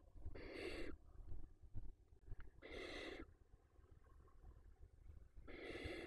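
Barn owl chicks giving harsh, rasping snore-like begging calls, three of them about two and a half seconds apart, each lasting about half a second.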